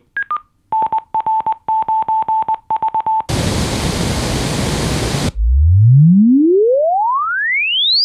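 Neumann KH310A studio monitor playing a test signal: a short two-note beep falling in pitch, then a Morse code ID on one steady tone, then about two seconds of pink noise. Last, a pure sine tone sweeps steadily upward from a low hum to a high whistle.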